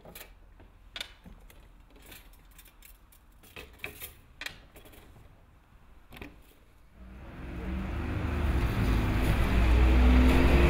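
Scattered light metallic clinks as silver Torah breastplates and their chains are handled. Then, about seven seconds in, road traffic swells up and a double-decker bus drives past close by, its engine droning low.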